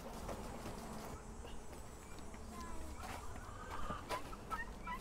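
Chickens clucking and chirping faintly, short calls coming more often in the second half, with a few light knocks.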